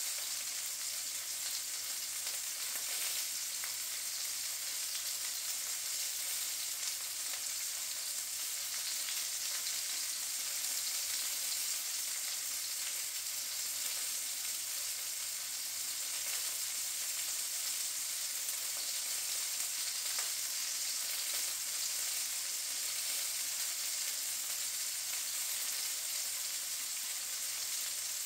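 Sausage links frying in a pan: a steady high sizzling hiss with faint crackles throughout.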